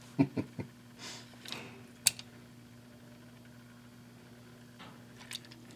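Small die-cast toy cars being handled and set down: a few short sharp clicks and a soft rustle, over a steady low electrical hum.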